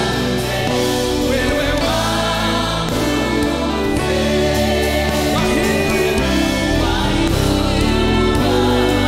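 A gospel vocal group singing together in harmony over a live band with keyboard, with steady held notes underneath.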